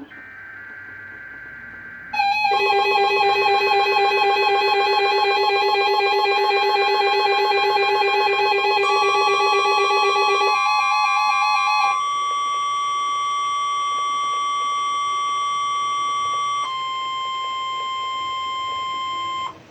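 Weather radio test alert tones. First come about two seconds of faint data-burst tones, then a loud warbling electronic alarm with several tones sounding at once. About ten seconds in it gives way to steady held tones, which drop in level twice and cut off suddenly at the end.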